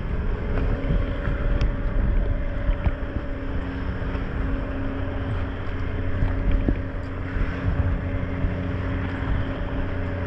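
Boat engine running steadily under way, a constant hum under rushing wind and water noise on the microphone.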